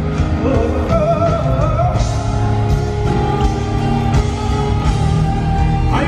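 Music with singing: a voice carrying a melody over sustained chords and a steady bass.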